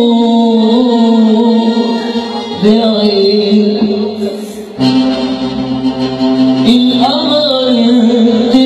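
A man singing long, wavering held notes of an Arabic song into a microphone, with a live band accompanying him; the sound dips briefly about four and a half seconds in, then the band comes back in fuller.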